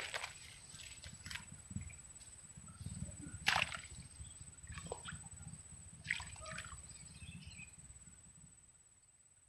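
Shallow water sloshing and splashing in about five short bursts, the loudest about three and a half seconds in, over a low rumble and a steady thin high tone; it fades off near the end.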